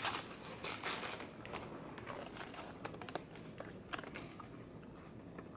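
Paper-and-foil food wrapper being crinkled and handled, with scattered small crackles.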